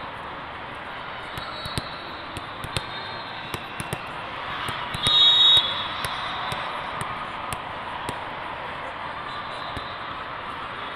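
Indoor sports hall with a steady murmur of crowd chatter and scattered sharp knocks, like a ball bouncing on the court. About five seconds in, a referee's whistle blows once, a loud, shrill blast lasting about half a second.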